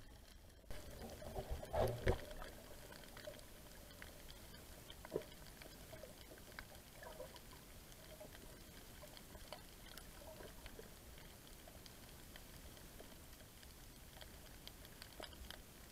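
Faint underwater sound picked up by a snorkeler's camera: a muffled steady water noise, with a brief louder burst of water movement about two seconds in and scattered small clicks after it.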